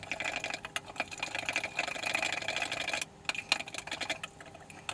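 A metal spoon stirring quickly in a measuring cup, a fast run of clicks and scrapes against the cup's wall, dissolving dry yeast, vinegar and honey in lukewarm water. The stirring breaks off briefly about three seconds in, then goes on more softly.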